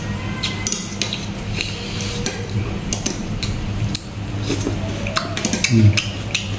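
Metal spoon clicking and scraping on a plate as salad is scooped up, with chewing sounds, over a steady low hum.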